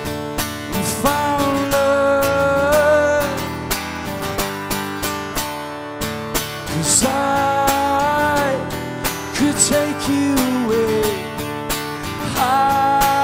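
Live acoustic song: a man sings long held, sliding notes over a steadily strummed acoustic guitar.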